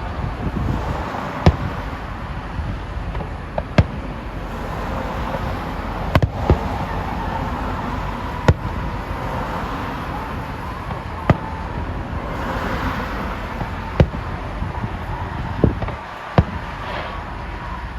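Fireworks display: sharp bangs of aerial shells bursting at irregular intervals, about nine in all, some close together, over a steady background rumble and hiss.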